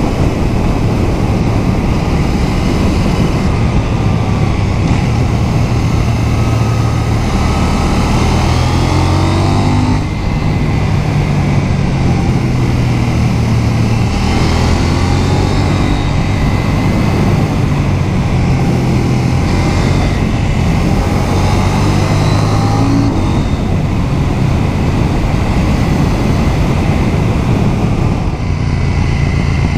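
KTM 790 Duke's parallel-twin engine running under way. Its note rises and falls several times as the rider accelerates out of bends and backs off, with a short dip about ten seconds in.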